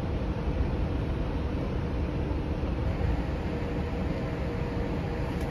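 Steady low rumble of a Hurtigruten coastal ship's machinery on its open deck, with a faint steady hum above it.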